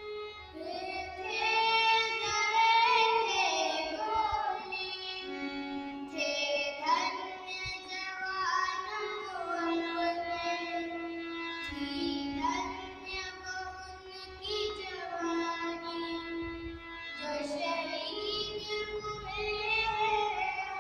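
A young girl singing a song to harmonium accompaniment. The harmonium's reeds hold steady notes under her voice.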